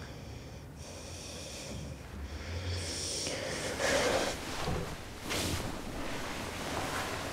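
A young woman breathing heavily and sighing, a few breaths in a row, the loudest about four seconds in.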